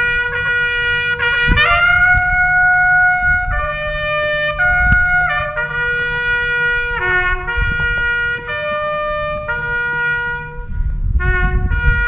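A bugle call on a brass horn: a run of single held notes changing about every second or two, with wind rumbling on the microphone underneath.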